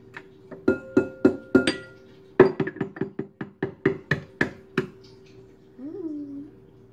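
An egg being tapped against the rim of a glass mixing bowl to crack it. First come several separate knocks, some with a brief glassy ring. Then a quick run of about a dozen lighter taps, some five a second.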